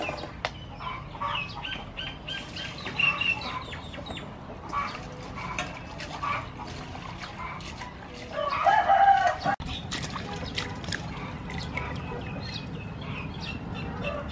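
Chickens clucking and peeping, with a rooster crowing once about eight and a half seconds in, the loudest sound.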